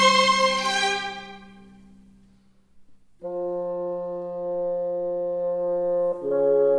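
Orchestral background music: a chord dies away over about two seconds, then after a short gap a held brass chord enters and moves to a new chord near the end.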